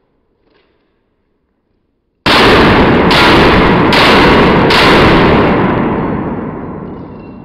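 Near silence for about two seconds, then four semi-automatic pistol shots a little under a second apart. Each shot rings on in a heavy echo, and the sound fades out slowly after the last one.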